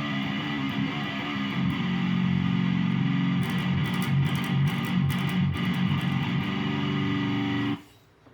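Electric guitar tuned down to drop F#, playing low, heavy riffs, ending on a held chord that is cut off abruptly near the end.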